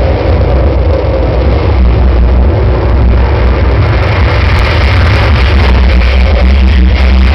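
A loud, steady deep rumble with a rushing noise over it.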